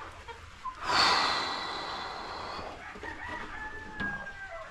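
Chickens calling in a crowded coop: a loud call about a second in that fades over roughly two seconds, then a fainter, drawn-out falling call near the end.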